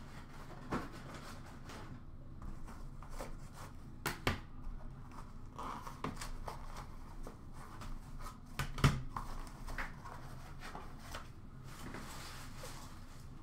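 Hands handling hard clear plastic card holders: scattered clicks and taps as they are lifted from the box and set down on a glass counter, with the loudest knock about nine seconds in.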